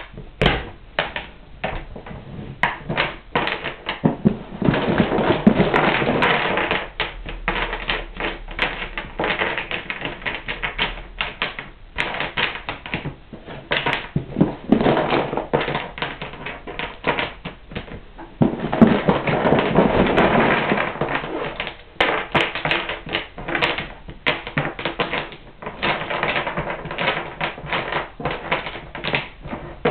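Oiled hardwood building-block pieces clicking and clacking as they are set down on a wooden board and knocked against each other, with a few longer spells of dense clatter.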